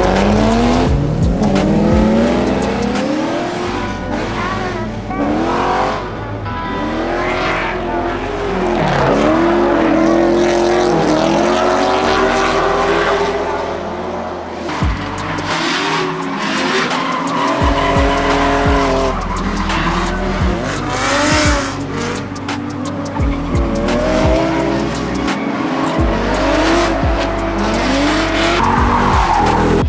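C5 Corvette V8 revving up and down again and again through a drift, with tyres squealing and skidding, over background music with a steady bass line.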